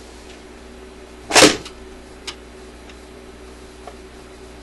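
Admiral suitcase record player's automatic changer mechanism cycling: one loud clunk about a second and a half in, then a couple of faint clicks, over a steady low hum from the running turntable.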